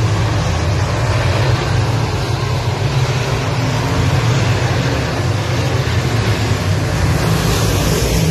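A pack of semi late model dirt-track race cars' V8 engines running at speed around the oval, a loud, steady drone.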